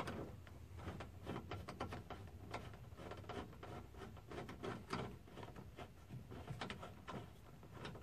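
Screwdriver turning a screw into the armrest handle of a car door panel: faint, irregular small clicks and scrapes of metal on metal and plastic.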